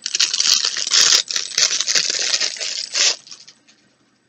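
Clear plastic wrapping crinkled and pulled apart by hand close to the microphone as an item is unwrapped, a loud dense crackling that stops about three seconds in.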